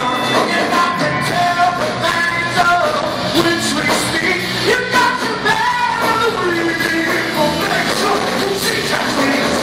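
Rock band playing live, a singer's voice over electric guitars, keyboard and drums, heard from the audience in a concert hall.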